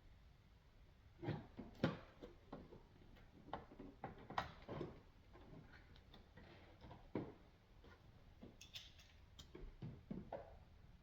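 Irregular light clicks and knocks of hands working a coolant hose and its clamps into place, a few sharper knocks about two seconds and four and a half seconds in.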